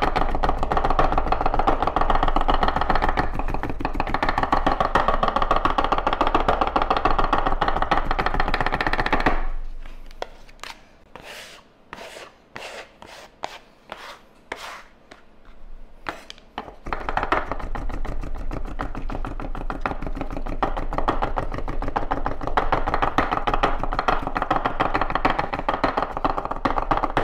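Garlic being minced with two chef's knives held together, chopping very fast on a wooden cutting board. About nine seconds in the chopping stops, leaving a few light separate taps while the garlic is scraped into a pile, and it resumes about seven seconds later.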